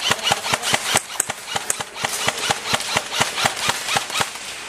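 Airsoft guns firing: a rapid, irregular run of sharp clacking shots, several a second.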